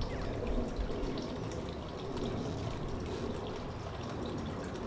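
Steady outdoor background noise with no distinct event.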